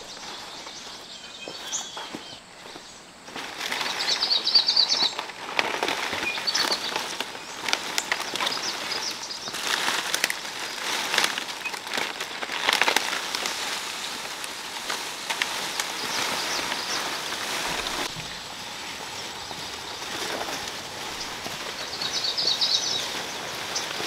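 Dry palm fronds rustling and crackling as they are handled and piled into a bundle, louder from a few seconds in. Birds chirp twice, near the start and near the end.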